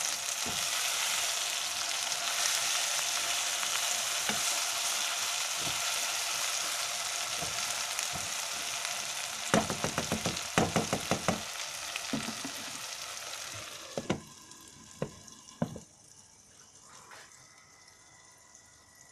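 Okra, onion and tomato sizzling as they fry in a non-stick wok, with a slotted spatula scraping and tapping against the pan in quick runs about halfway through. Near the end come a few knocks as the pan is covered with a glass lid, and the sizzle drops to a faint hiss.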